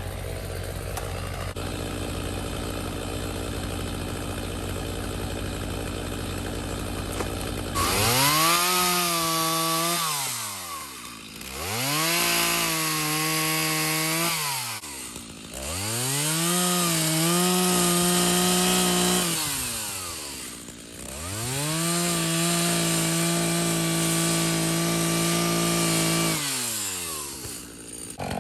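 Two-stroke chainsaw idling steadily, then revved up to full throttle four times, each time held high for a few seconds before dropping back to idle.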